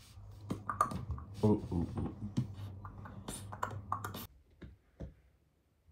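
Rapid, irregular clicks and taps over a low steady hum, both stopping about four seconds in and followed by a few scattered clicks.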